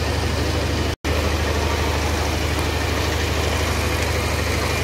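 Engine-driven water pump running steadily with a low hum while it drains the pond. The sound cuts out for an instant about a second in.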